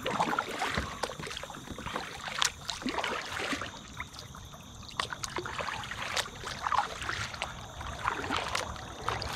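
Double-bladed kayak paddle stroking through calm water, with splashes and drips and many scattered sharp ticks and knocks.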